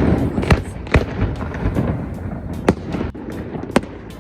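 Fireworks bursting: sharp cracks every second or so, irregularly spaced, over a constant low rumbling of distant booms.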